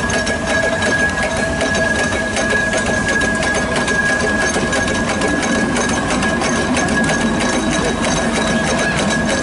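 Steam traction engine running as it drives slowly past, with a fast, even mechanical clatter from its motion and gearing over a low rumble. A steady high-pitched tone sounds over it.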